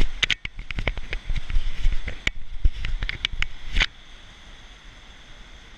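Camera being handled and moved: a rapid, irregular run of clicks, knocks and low thumps on the microphone for about four seconds, then these stop suddenly and only a faint steady background noise remains.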